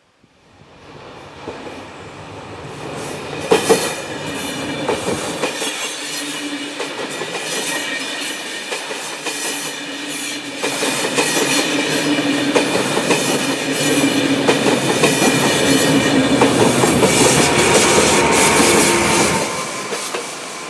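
A ČD Railjet passenger train passes close by, its coaches clattering over the rail joints with wheels squealing on the curve, pushed by a ČD class 1216 Taurus electric locomotive at the rear. The sound rises from silence in the first seconds as it approaches and falls away shortly before the end as the locomotive goes by.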